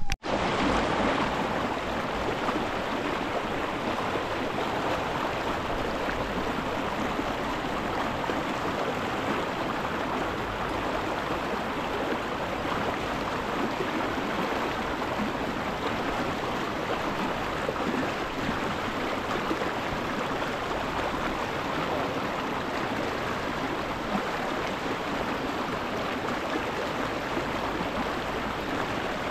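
Rushing river water, a steady even flow.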